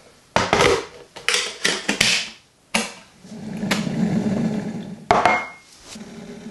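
Kitchen clicks and knocks as a kettle and crockery are handled, and in the middle a steady rushing hum from an electric kettle heating water.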